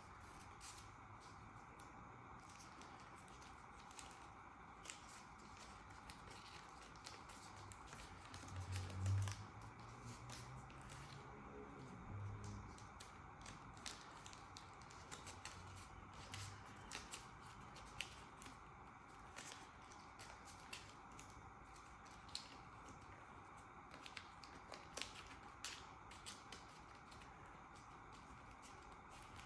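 Scattered small clicks and handling noises over a steady background hiss, with a brief low rumble about nine seconds in.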